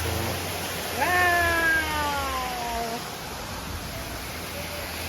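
A young child's drawn-out vocal call, jumping up in pitch and then sliding slowly down for about two seconds. A steady low rumble runs underneath.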